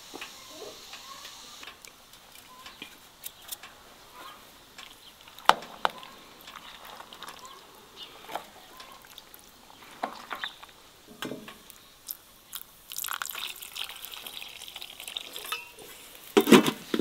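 Cooking sounds: scattered knocks and clinks of utensils and cookware, with a sharp loud knock about five seconds in. About thirteen seconds in there is a stretch of hissing, and a louder clatter comes near the end.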